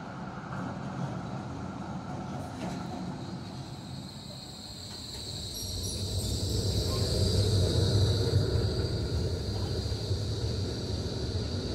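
Melbourne B-class articulated tram approaching on its rails. Its low rumble grows louder from about halfway through, joined by a high, steady wheel squeal as it draws near.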